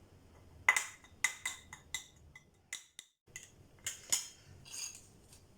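A spoon clinking and tapping against a dish, a string of sharp clicks at uneven intervals, as a spoonful of honey goes into onion juice.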